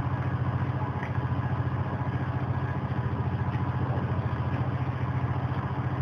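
A motor running steadily, with an even throb of about eight pulses a second, like an engine idling.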